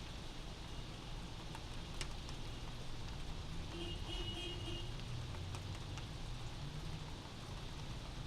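Steady rain heard from inside a house, with scattered drops ticking on a surface over a low, even rumble.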